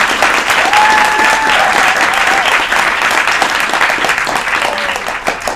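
Audience applauding, with a voice whooping over the clapping about a second in. The applause eases slightly near the end.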